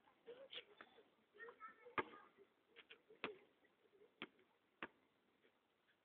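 A basketball bouncing on a hard surface and coming to rest: four knocks, each quicker after the last and fainter.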